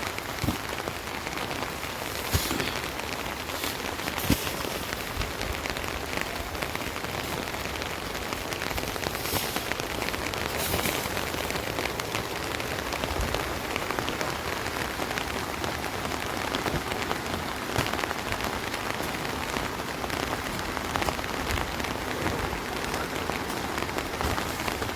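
Steady, even rush of water noise, with a few sharp knocks in the first few seconds.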